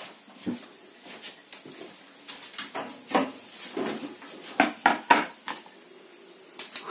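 Kitchen dishes and utensils clattering: a string of sharp knocks and clicks, with three loud knocks in quick succession about halfway through.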